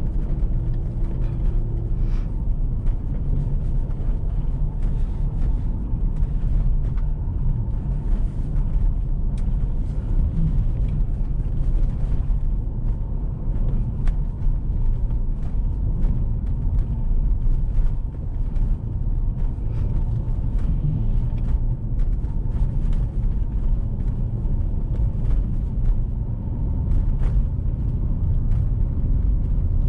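Car driving over a thick layer of fresh snow: a steady low rumble of the engine and tyres, with scattered faint clicks.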